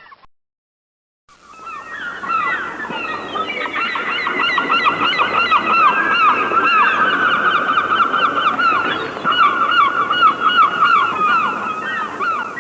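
A flock of birds calling all at once, a dense chorus of many loud, overlapping, repeated calls. It starts abruptly about a second in after a brief silence.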